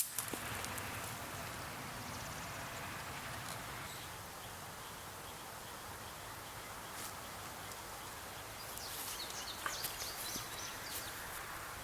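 Quiet outdoor rural ambience: a steady faint hiss with faint high chirps about nine to eleven seconds in.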